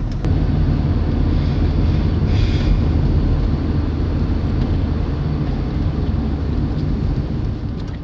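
Steady low rumble of engine and road noise heard inside a moving car's cabin, with a brief hiss about two and a half seconds in.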